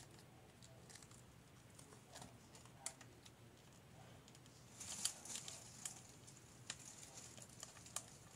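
Faint handling noise of small plastic toy pieces: scattered light clicks and rubbing as they are turned in the fingers and fitted together, with a small cluster of clicks about five seconds in.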